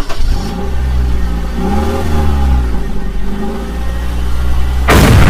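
Vehicle engine running with a steady low drone, its pitch rising and falling as it revs. Near the end a sudden, louder burst of noise cuts in.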